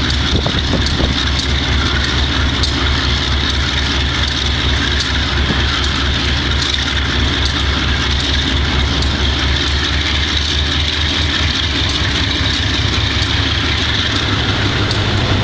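GE B30-7 locomotive's V12 diesel engine running steadily with an even low throb, a unit with bad fuel injectors. A few faint ticks sit over it.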